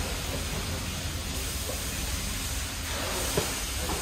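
Steady hiss and sizzle of clay tagines cooking over charcoal braziers, with a light click about three seconds in.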